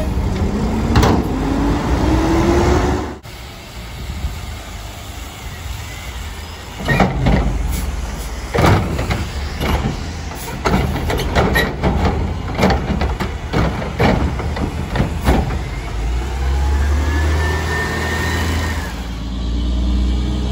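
Front-load garbage trucks with Curotto-Can automated arms dumping wheeled carts: the diesel engine revs up with a rising pitch to drive the arm's hydraulics, then a run of sharp bangs as a cart is shaken out into the can, and the engine revs again near the end.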